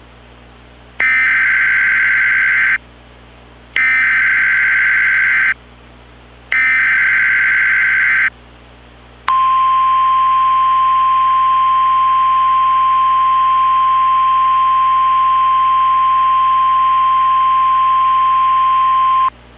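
Emergency Alert System header from a DASDEC encoder: three bursts of screeching SAME data tones, each just under two seconds long with short gaps, then the steady single-pitch 1050 Hz warning alarm tone held for about ten seconds. Together they announce a tornado warning.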